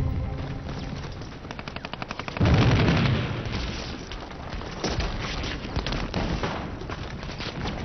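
Battle sound effects: rapid machine-gun fire, then a loud explosion about two and a half seconds in, followed by scattered gunshots.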